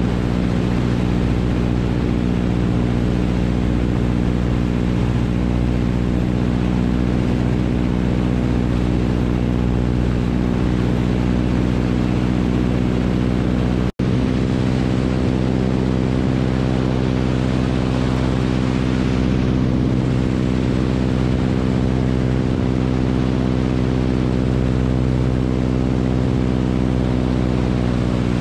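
Radial engine and propeller of an open-cockpit biplane running steadily in cruising flight, heard from on board. The sound cuts out for an instant about halfway through.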